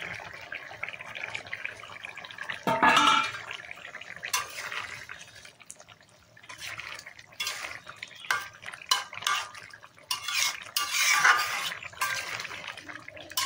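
Metal bowl scraped and knocked against the rim of a metal cooking pot as ground paste is emptied into simmering fish curry, followed by a run of sharp metal clinks and clatters. The loudest scrape comes about three seconds in, with another loud clatter near the end.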